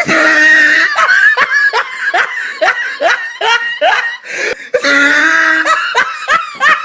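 Hearty laughter in a fit of repeated short 'ha' bursts, about three a second, broken by longer high-pitched held laughing sounds near the start and about five seconds in.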